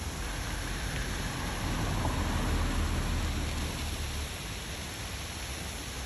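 Steady rushing noise of a rain-fed roadside waterfall running down the rock face, with a low rumble swelling slightly about two to three seconds in.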